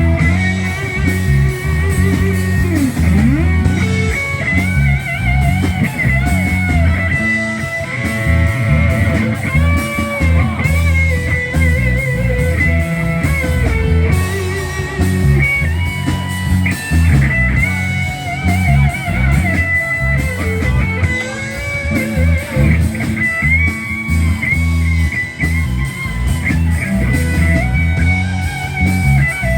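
Live rock band playing an instrumental passage: an electric guitar lead with long, wavering, bent notes over bass guitar and a steady low backing.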